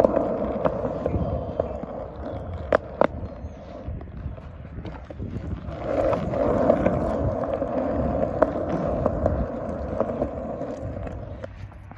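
Skateboard wheels rolling on a concrete sidewalk: a steady rumble with sharp clicks now and then. The rumble eases off for a few seconds and grows louder again about halfway through.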